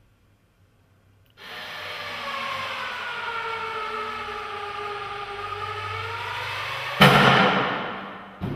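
A sustained whine with several pitches sliding slowly down and back up, starting about a second and a half in, then a sudden loud bang about 7 s in that fades away over the next second.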